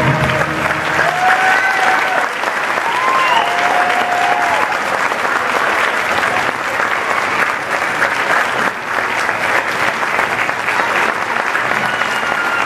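Audience applauding in a school auditorium after a concert band's final chord dies away about a second in, with a few cheers rising over the clapping in the first few seconds.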